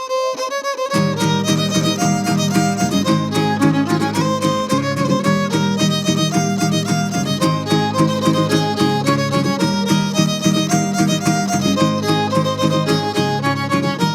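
Son huasteco trio playing an instrumental interlude: a violin melody over the rhythmic strumming of a jarana huasteca and a huapanguera, which come in about a second in.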